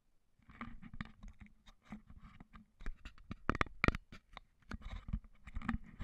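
Footsteps crunching and scraping over broken concrete and brick rubble, an irregular run of gritty clicks and knocks with a few louder knocks just past the middle.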